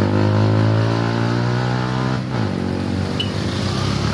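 A motor vehicle engine running steadily, its pitch easing slightly and then dropping about two seconds in, as when it shifts or slows.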